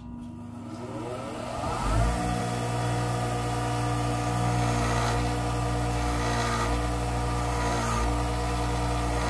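Bench grinder switched on, its motor spinning up over about two seconds to a steady hum. A steel nut is then held against the wheel, grinding with a rough rasp that swells now and then.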